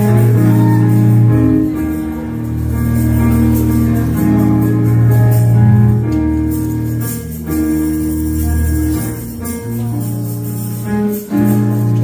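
Live gospel church band playing an instrumental passage: sustained organ-like chords over deep bass notes that change every second or two, with tambourine.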